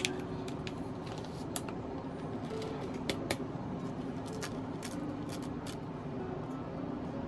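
Crackling and rustling of drip-bag coffee packaging being handled: the sachet torn open and the paper filter bag pulled out, torn and unfolded, in scattered sharp crackles over a steady low hum.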